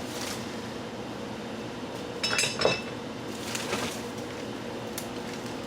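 Light metallic clinks and rustling as metal parts and packing are handled, loudest in a short cluster a little over two seconds in, with a single click near the end and a faint steady hum underneath.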